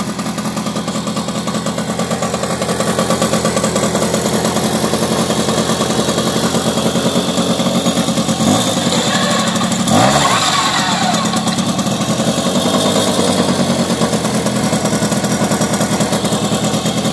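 Tomos Streetmate R's A55 two-stroke moped engine running at idle on its stock exhaust, with a brief rise and fall in engine pitch twice, about eight and ten seconds in.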